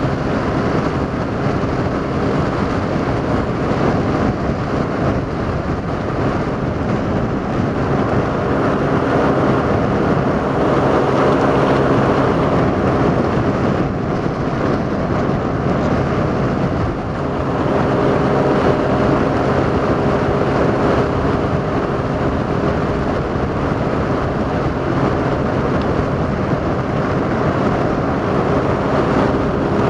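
Motorboat engine running steadily underway, with an even rush of wind and water. It dips briefly about two-thirds of the way through.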